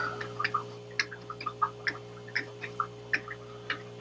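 Paintbrush dabbing and tapping paint onto the painting to build up bushes: light, irregular ticks, about three or four a second, over a steady low electrical hum.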